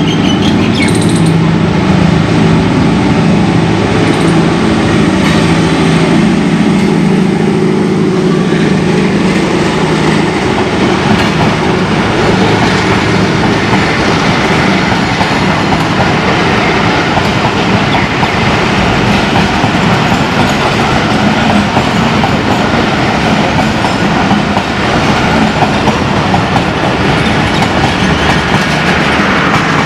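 A ZCU-20 diesel-electric locomotive running past with a steady low engine drone. About ten seconds in, the drone fades under the rolling rumble and wheel-on-rail noise of its passenger coaches going by.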